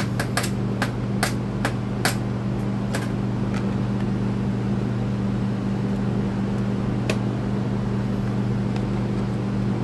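Steady electric fan hum throughout, with a run of light clicks in the first few seconds and one more later, as screws on a string trimmer's recoil starter housing are snugged down with a small screwdriver.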